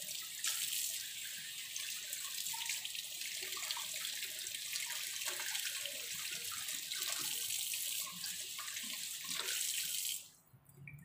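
Kitchen tap running steadily, its water splashing over a fish held in the hands and into a stainless steel sink as the fish is rinsed. The flow cuts off suddenly about ten seconds in when the tap is turned off.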